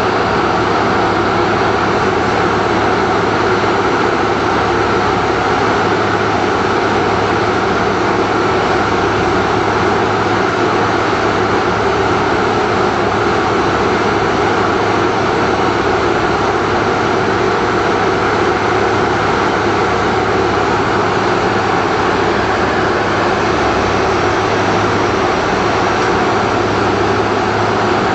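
Silage harvesting machinery running steadily and loudly: an even engine drone with a low hum under a broad rush of noise that does not rise or fall.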